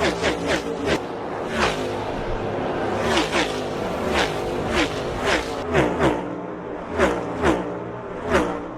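NASCAR stock cars' V8 engines passing at race speed one after another, more than a dozen in quick succession, each engine note dropping in pitch as the car goes by.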